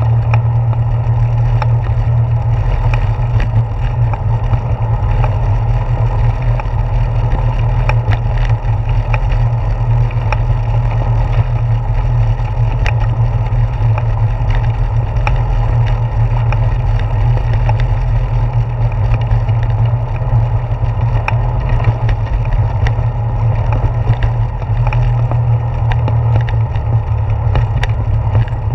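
Bicycle tyres rolling over a wooden plank boardwalk: a steady low rumble with many small clicks as the wheels run across the board joints, the vibration carried up through a handlebar-mounted GoPro.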